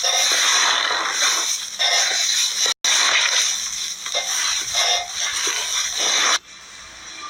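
Slime being squished and worked by hand, a dense wet crackling and sizzling, broken off for an instant near three seconds in and falling much quieter shortly before the end.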